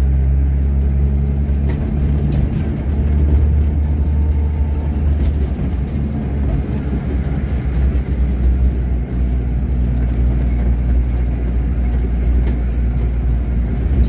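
Car driving on a paved road, heard from inside the cabin: a steady low engine and road rumble.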